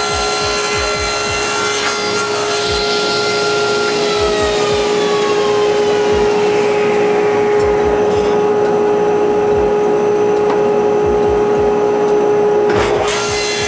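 Table saw running steadily, its blade cutting small mahogany triangles.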